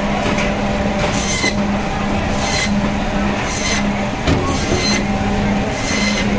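Band saw running with a steady hum, with a harsher high rasp about once a second as the blade cuts through a pangasius fish into steaks.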